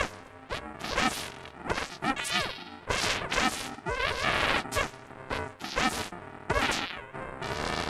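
Cartoon voices sneezing and hiccuping together in a chorus, layered and warped by added audio effects into a jumble of sudden bursts with sliding pitches.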